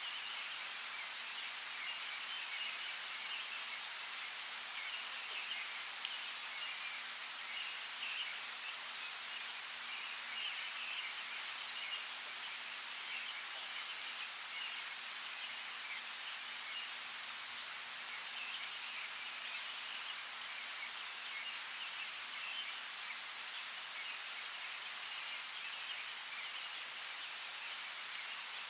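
Steady rainfall with a constant patter of raindrops, under faint, busy bird chirping. A few single drops land louder and sharper, about eight seconds in and again near twenty-two seconds.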